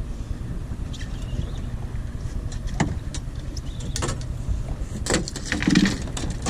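Steady low rumble aboard a fishing boat, with scattered sharp knocks and a louder clatter of bumps about five to six seconds in.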